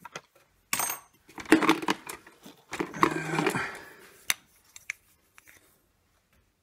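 Hand tools and short copper pipe offcuts with plastic push-fit caps clinking and clattering as they are rummaged through and lifted out of a tool bag: several bursts of rattling, then a single sharp knock.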